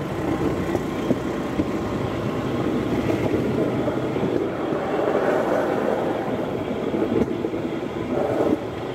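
Motorized rail car (motorrodillo) running along the track: a steady rolling and engine rumble, with occasional sharp clicks.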